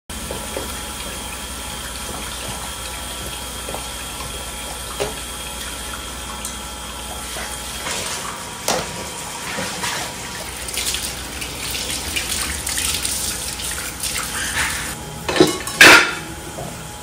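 Tap water running into a kitchen sink during dishwashing, with scattered light clinks of crockery. Near the end come two louder clatters as a stove burner grate is set into a plastic dish rack.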